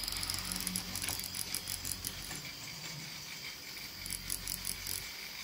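Hornby Mallard model locomotive creeping slowly along its track: a faint low hum with light mechanical clicks and rattles, a few bunched together near the end.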